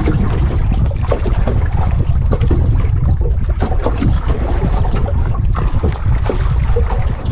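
Loud wind buffeting the microphone on a small outrigger boat at sea, a steady low rumble with the wash of choppy water around the hull.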